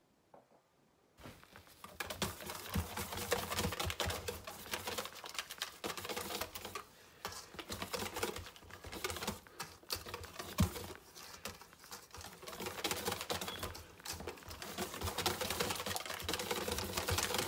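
Wire whisk beating pancake batter in a stainless steel bowl: a fast, dense run of clicks and scrapes of the wires against the metal. It starts about two seconds in and keeps going with a couple of brief lulls.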